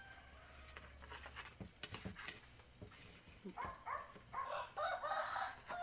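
A kitchen knife cutting through an omelette on a paper plate, with faint scraping clicks. About three and a half seconds in, a run of short, high animal calls starts and is the loudest sound.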